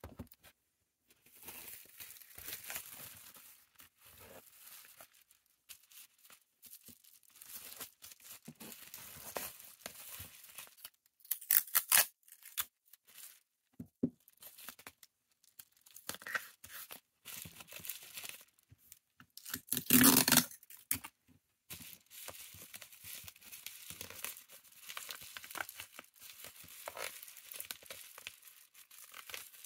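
Bubble wrap and plastic crinkling as it is wrapped around a small parcel, with adhesive tape pulled and torn from a desk tape dispenser in a few short rips, loudest about twelve and twenty seconds in.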